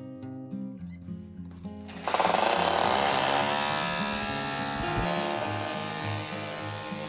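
A power tool starts about two seconds in and runs loud and steady over acoustic guitar music.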